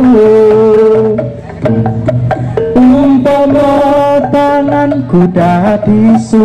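Javanese tiban accompaniment music: hand-drum beats under a held, wavering melodic line.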